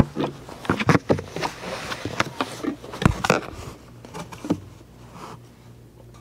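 Knocks, bumps and rustling from a plastic bucket of hydraulic oil being picked up and handled over a filler funnel: a string of irregular clicks and thumps that thins out after about four and a half seconds.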